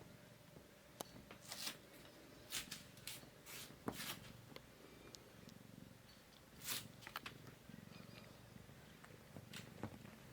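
Kitten purring faintly, with short scratchy rustling noises scattered through, most of them in the first seven seconds.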